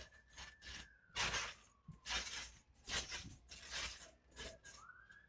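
Bouncing, rustling and scraping of a backyard trampoline mat as a person moves across it and drops onto it: a string of short noisy bursts, the strongest between about one and four seconds in. A faint high tone rises, holds and falls away under them.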